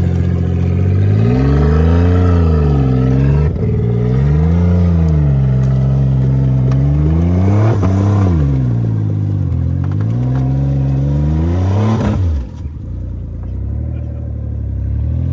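Wrecked Ford Escape's engine revving up and down about five times as the damaged SUV is driven along, its exhaust blown open so that it sounds straight-piped. About twelve seconds in the revs drop sharply, and it runs lower and steadier.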